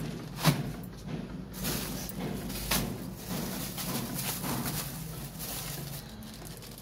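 Plastic bags rustling and crinkling as they are handled, with a sharp knock about half a second in and a lighter one near three seconds.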